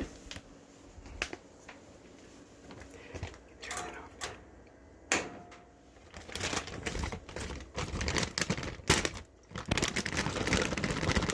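Hands handling plastic vacuum-sealer bags and food scraps: scattered clicks and knocks, then from about six seconds in a dense run of rapid clattering and crinkling.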